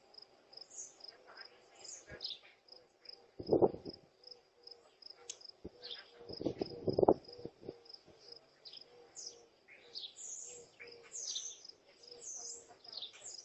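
Crickets chirping in a steady pulsing trill, with birds chirping over it. Two louder, lower sounds break in, a short one about three and a half seconds in and a longer one around six to seven seconds.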